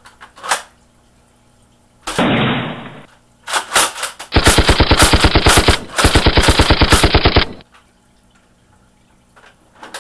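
Machine-gun sound effect: two long bursts of rapid automatic fire, about a dozen shots a second, with a brief break between them. Shortly before, a second of duller, dense noise and a few sharp clicks.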